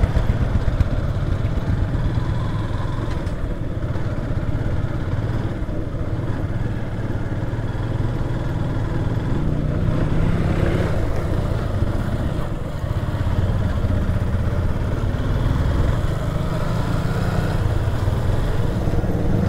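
Motorcycle engine running at riding speed, heard from the rider's seat, with wind and road noise. Its pitch rises a couple of times, about halfway through and again near the end.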